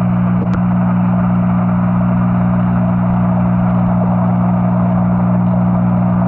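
Steady electrical hum of aquarium equipment, with a constant hiss over it. A faint click about half a second in.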